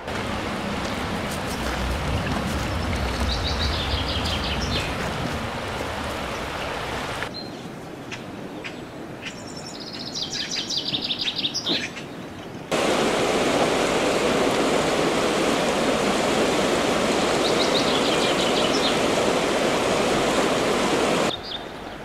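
Small songbirds singing short, fast trilled phrases, several times, over a steady rushing background noise. The rushing grows much louder about halfway through.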